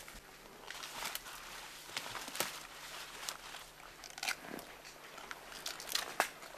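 Faint rustling of leaves with irregular snaps and crackles of twigs and stems being disturbed in dense forest undergrowth.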